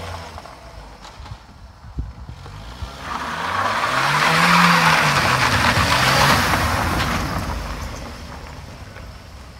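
Vauxhall Corsa's engine revving up and dropping back over about five seconds, with a loud rushing hiss that swells and fades with it, as the car spins its wheels on ice.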